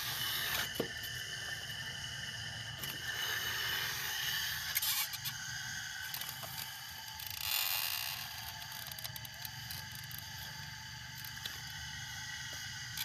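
Model RC hydraulic excavator working: its motor and hydraulic pump run steadily while the bucket scrapes and digs through dry soil, with a few louder scrapes along the way.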